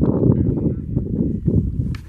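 Wind buffeting the microphone: a loud, low, rumbling rush without any clear pitch.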